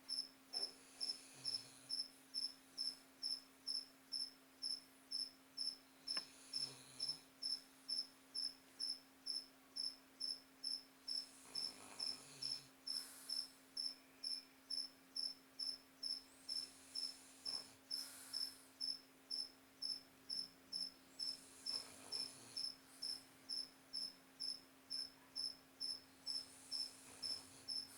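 A sleeping dog snoring softly, one slow breath about every five seconds, under a steady high chirping about twice a second, like a cricket.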